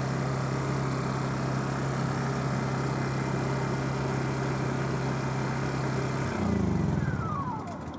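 Small portable inverter generator running steadily, then switched off about six seconds in: the engine note sinks and winds down with a falling whine, dying away near the end.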